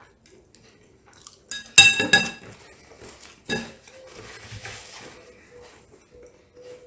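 Metal fork and knife clinking against a ceramic plate as they are set down: a quick run of sharp clinks with short ringing about two seconds in, and one more clink about a second and a half later.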